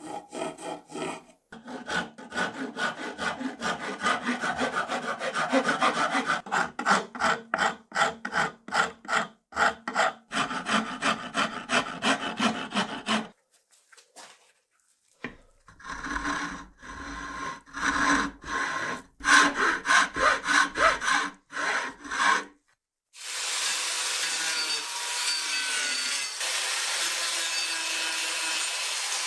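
A hand rasp filing a wooden axe handle in quick repeated strokes, in two long runs with a short pause between them. In the last six seconds a small handheld power tool with a sanding disc runs steadily as it grinds grooves into the wood.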